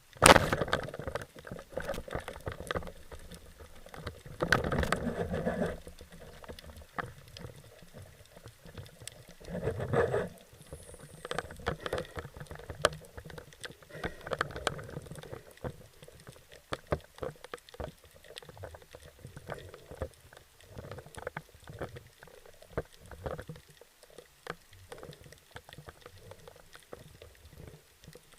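Water splashing and bubbling around an action camera in its waterproof housing. It comes in bursts just after the start, about five seconds in and about ten seconds in, with small clicks scattered throughout.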